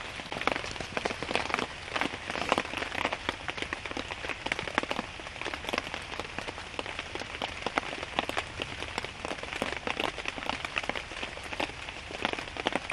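Rain pattering, with many separate drops striking close by in quick, irregular succession.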